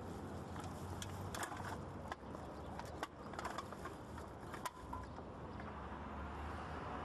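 Plastic bags rustling and a wire shopping cart rattling with scattered clicks while things are rummaged through, mostly between about one and five seconds in, over a steady low rumble of city traffic.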